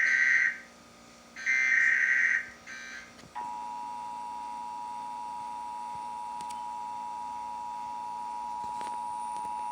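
Emergency Alert System digital data bursts: the end of one short screechy burst, then a second about a second and a half later, the end-of-message code sent after the test message. About three seconds in, the steady two-tone EAS attention signal (853 and 960 Hz) starts and holds.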